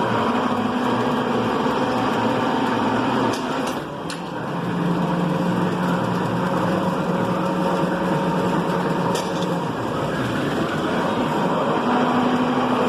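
Machine tool running steadily with a motor hum that drops in pitch about four seconds in and rises again near the end, with a couple of brief clicks.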